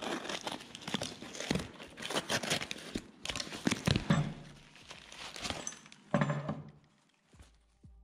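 Paper-wrapped cardboard mailer being cut open with a utility knife and torn open by hand: paper and tape crinkling and ripping in quick bursts, dying away about seven seconds in.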